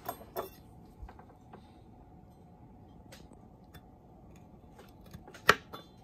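Scattered light clicks and taps of a santoku knife and gloved fingers handling a tiny chili pepper on a wooden board, with one sharp knock about five and a half seconds in as the blade meets the board.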